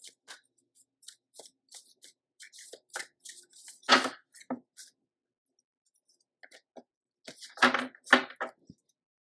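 A deck of oracle cards being shuffled by hand: quick flicks and snaps of the card edges, with louder knocks about four seconds in and again near eight seconds as the cards meet the table.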